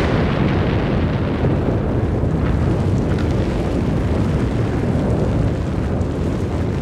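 Sakurajima volcano erupting: a loud, steady, deep rumble as the ash plume blasts from the crater, easing slightly over the seconds.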